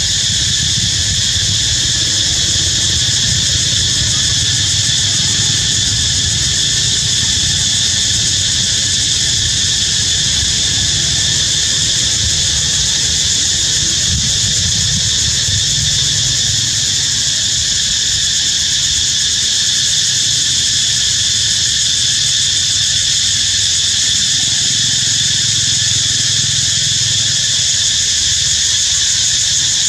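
A loud, steady insect chorus that holds several high pitches unchanged throughout, over a constant low rumble.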